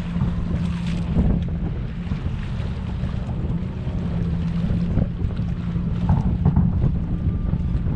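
Wind buffeting the microphone, with a steady low hum beneath it and a few faint pops from distant fireworks.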